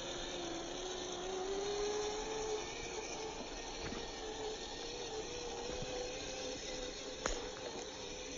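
A 1/10-scale RC crawler's motor and geared drivetrain whining as it drives. The whine climbs in pitch over the first couple of seconds, then holds steady, with a sharp click near the end.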